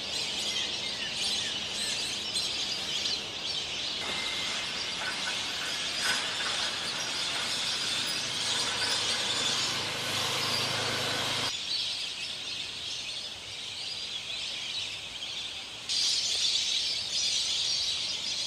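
Large flock of lesser whistling ducks calling: many overlapping high whistles in a dense, steady chorus, which shifts abruptly several times.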